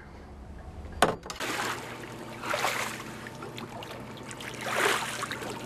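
Water splashing and sloshing as a swimmer moves in the water beside a boat's hull, in two swells of splashing a couple of seconds apart. A sharp click about a second in.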